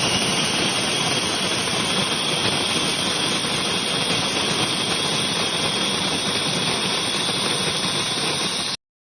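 Imarflex IBG-159C electric conical burr coffee grinder running at a steady pitch, a high whine over a rushing whir, set for two cups; it stops suddenly near the end.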